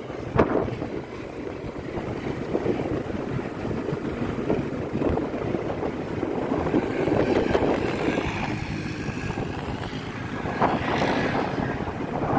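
Strong wind blowing across the phone's microphone, a continuous rough rumble that swells and eases, with vehicle engines running underneath it.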